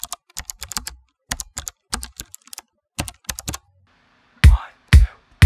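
Keyboard typing clicks in short quick runs, then about four and a half seconds in, music starts with three deep, heavy drum hits.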